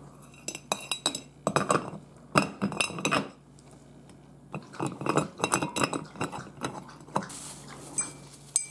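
Metal chandelier chain and its metal canopy clinking and rattling against each other as they are handled, in irregular clusters of small ringing clinks.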